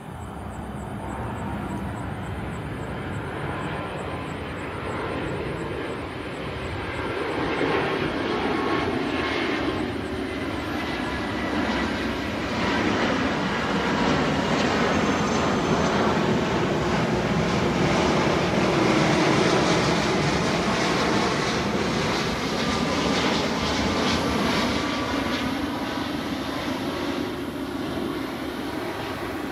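Airbus A350-900 jet airliner flying low overhead on approach to land. The engine roar builds, is loudest about halfway through with a falling pitch as it passes, then fades.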